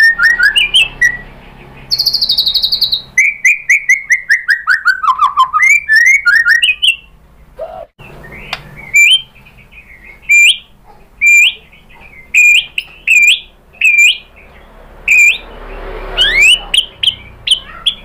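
White-rumped shama singing a varied song of loud whistles: a fast high trill about two seconds in, then a run of notes falling in pitch, then from about nine seconds on a string of short, sharp rising notes with clicks, repeated roughly every half second to second.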